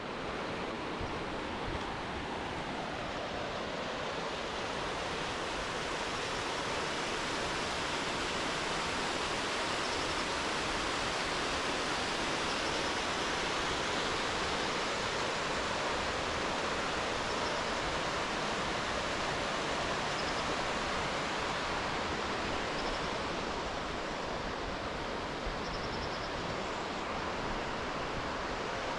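Steady rush of falling, fast-flowing water from Bear Creek, an even roar with no breaks.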